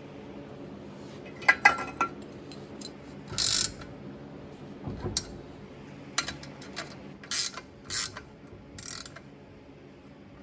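Ratchet wrench clicking in several short strokes while bolting a ball joint to a steel control arm held in a vise. A few sharp metal clinks come near the start.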